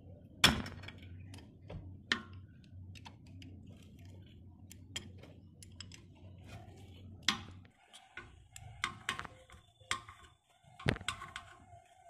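A 5 mm Allen key clicking and clinking against the bolt under the cap of a motorcycle's rear brake caliper as the bolt is turned loose: scattered sharp metallic ticks, the loudest about half a second in, with a quicker run of clicks near the end.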